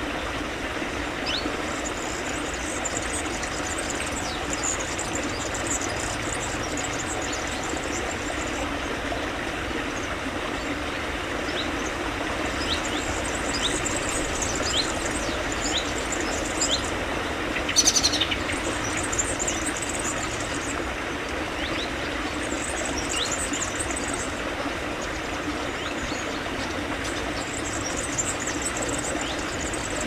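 Small mountain stream flowing steadily. Small birds twitter in high, thin bursts several times over it. A single sharp click just past halfway is the loudest moment.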